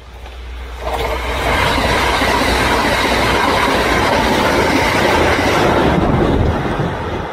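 Kintetsu electric train passing through close by: its noise builds, jumps up about a second in as the cars arrive, stays loud and steady with wheels clattering over the rails for about five seconds, then begins to fade near the end.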